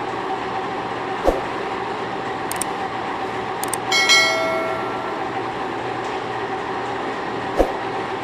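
Machine-shop machining of steel running steadily with a constant hum, two sharp knocks, and about four seconds in a metallic clang that rings briefly.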